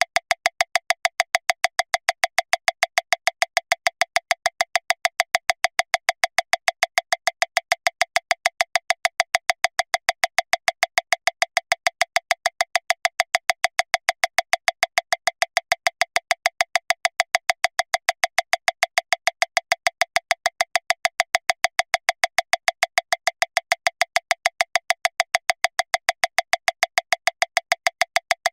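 Metronome clicking steadily at 405 beats per minute, about seven short, even clicks a second with no accented beat.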